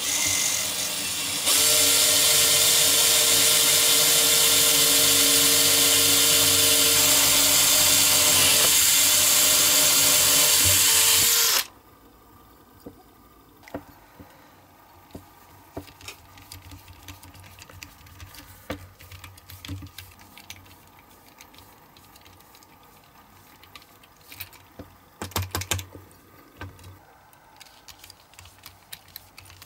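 Electric drill running steadily with a whine while drilling into the diecast metal of a toy model, louder from about a second and a half in, then cutting off suddenly after about twelve seconds. Afterwards, faint clicks and scraping of small tools on the metal parts, with a short run of sharper ticks near the end.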